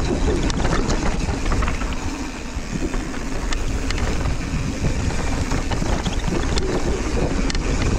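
Mountain bike riding fast down a dirt trail: wind buffeting the camera microphone over the rumble of tyres on packed dirt, with scattered clicks and rattles from the bike.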